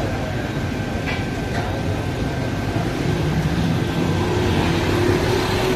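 Steady low rumbling background noise at a busy street food stall, with a few faint clinks and no single sound standing out.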